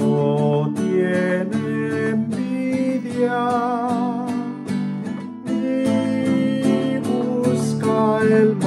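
Classical nylon-string guitar strummed in chords in a steady rhythm, with a man singing a slow hymn melody along with it.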